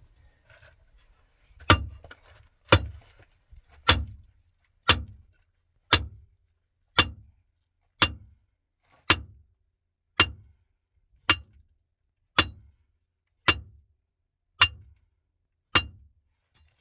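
A steady series of about fourteen sharp knocks, about one a second, each with a short low thud after it.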